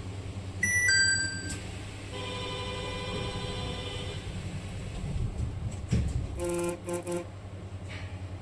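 Stopped Nippori-Toneri Liner automated guideway train with its steady low hum: a two-note electronic chime, then a held electronic tone for about two seconds, a dull thud, and a short pulsed toot near the end, the signals before the doors close and the train departs.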